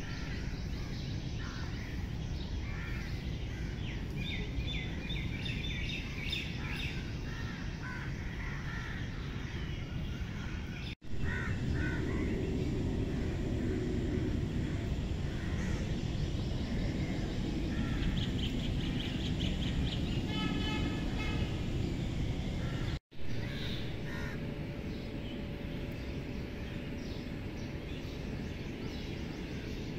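Outdoor ambience: a steady rumble of background noise with birds chirping and crows cawing, breaking off briefly twice.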